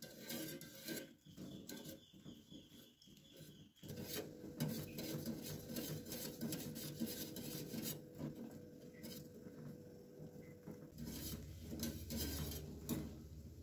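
Wire whisk stirring milk in a stainless steel saucepan, its wires scraping and clicking irregularly against the pan. The milk is stirred as it heats with pandan leaves, to keep it smooth and stop it splitting.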